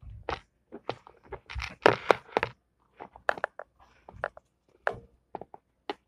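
Irregular knocks, crackles and scrapes from a handheld camera being grabbed and moved about. There are many short sharp clicks in quick succession, with brief rustling between them.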